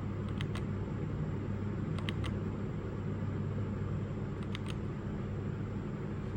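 Keys of a JEDEL KL-141 mechanical keyboard with red switches clicking in quick pairs about every two seconds, as its lighting modes are stepped through, over a steady low hum.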